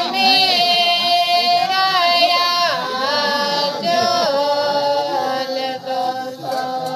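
Voices singing a slow melody together, with long held notes that step up and down in pitch.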